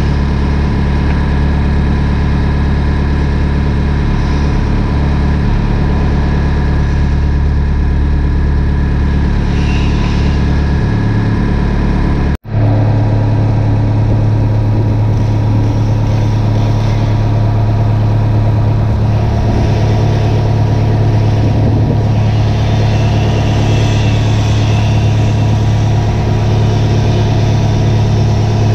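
Diesel engine of a winch-equipped logging machine running steadily, heard from the operator's seat. About twelve seconds in the sound drops out for an instant, and after that a low steady hum is stronger.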